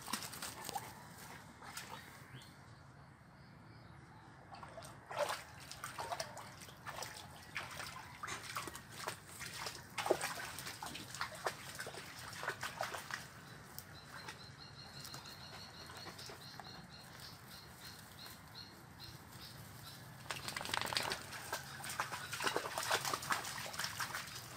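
Dogs wading through a shallow muddy canal: irregular splashing and sloshing of water, heaviest in clusters about five, ten and twenty-one seconds in.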